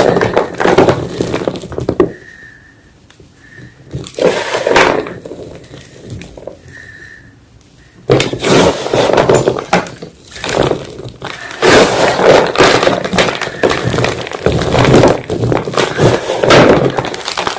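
Reformed gym chalk being crushed, crunching and crumbling. A burst of crunching comes at the start and another about four seconds in, then dense, continuous crunching from about eight seconds in.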